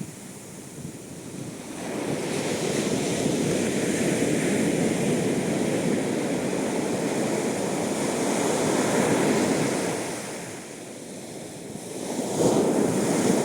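Ocean surf breaking on a beach: a wave rushes in about two seconds in and washes on steadily before fading near ten seconds, then a second, shorter wave breaks near the end.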